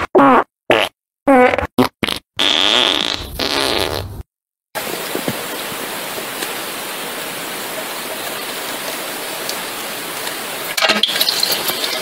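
Fart sound effect: a quick string of six or seven short farts with wavering pitch and silent gaps between them, the last one drawn out for about two seconds. Then a steady even hiss, growing rougher near the end.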